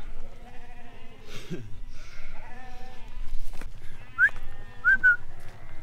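Flock of ewes and lambs bleating, several calls following and overlapping one another, with two short high-pitched calls about four and five seconds in.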